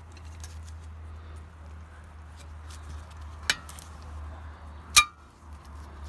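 Brake caliper anti-rattle spring clip being prised off with a flat-blade screwdriver: light metal clicks, the sharpest and loudest a ringing click about five seconds in, over a steady low hum.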